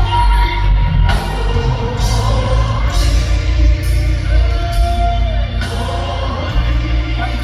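Live gospel praise-and-worship music: a band with heavy, steady bass and voices singing.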